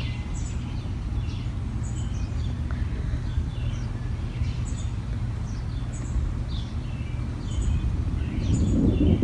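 Songbirds chirping over and over, about once a second, above a steady low background rumble. Near the end a deeper rumble of distant thunder swells up under the birdsong.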